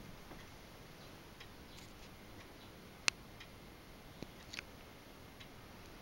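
Quiet room hiss with a few faint, irregularly spaced clicks. A single sharp click comes about three seconds in, and two or three softer ones a little after four seconds.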